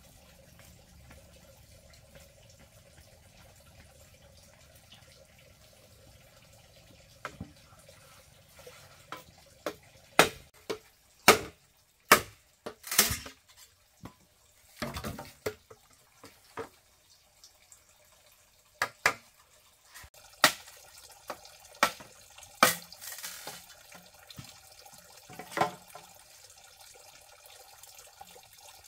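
Machete blade chopping into green bamboo poles: a series of sharp, irregular knocks, the hardest blows about ten to thirteen seconds in, the strikes stopping near the end.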